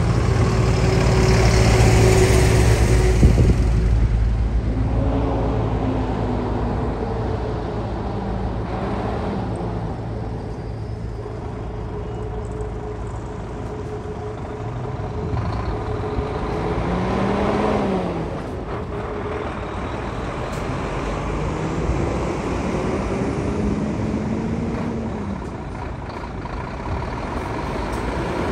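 Heavy diesel trucks driving past one after another. One runs loud and close at the start, then further trucks pull up, their engine notes rising and falling as they accelerate and shift gears.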